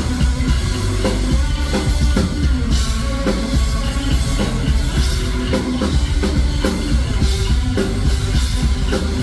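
Metal music with a driving drum kit, bass drum and guitar, playing loudly without a break.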